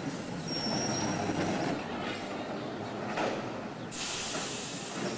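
Vintage streetcar rolling past on street rails, with a thin high whine over the first couple of seconds. A loud hiss comes in about four seconds in.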